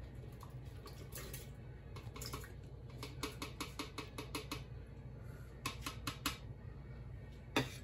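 Blueberries being tipped from a small container into a blender jar, making a run of small clicks and taps. They come quickest about three to four and a half seconds in, and there is a louder knock near the end.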